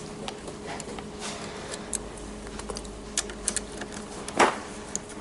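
Scattered small clicks and taps of hands and a screwdriver working screws out of a car's interior fittings, with one louder, brief scrape about four seconds in, over a steady hum.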